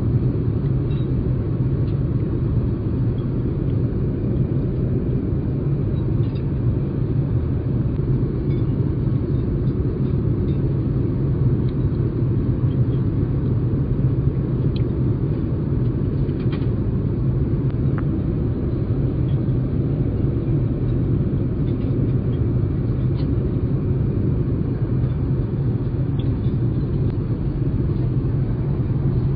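Airbus A380 cabin noise in flight: a steady low rumble of engines and airflow. Faint clinks of cutlery on china come through now and then.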